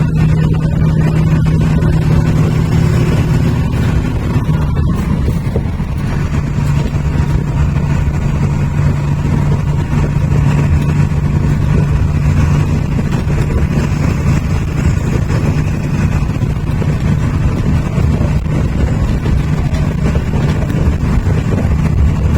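Volkswagen bus with a Comil body, its diesel engine running steadily with a constant low hum. There is a brief break in the sound about five seconds in, and then it runs on evenly.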